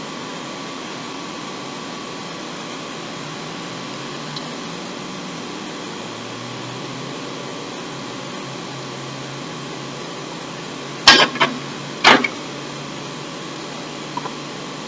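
Steady background hum like a fan or air conditioner, with two sharp knocks about a second apart near the end, typical of vegetables or utensils set down on a tray.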